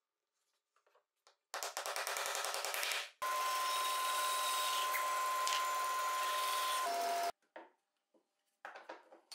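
Homemade band saw cutting a small tube-shaped workpiece: a rapid rattling chatter for about a second and a half, then a steady cutting hiss with a high ringing tone that drops in pitch just before the sound cuts off abruptly.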